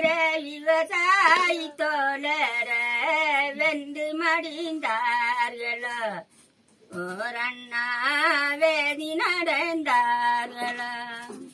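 Elderly woman singing unaccompanied in Tamil: slow phrases of long, held, wavering notes. She breaks off briefly about six seconds in, then starts a second phrase.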